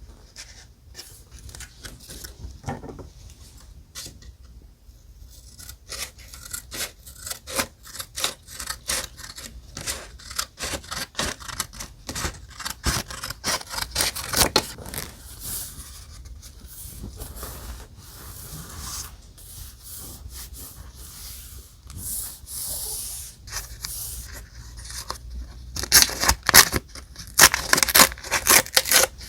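Paper being handled for journal decorating: die-cut paper pieces and pages crinkling, rustling and rubbing, with many sharp crackles and a busier flurry near the end.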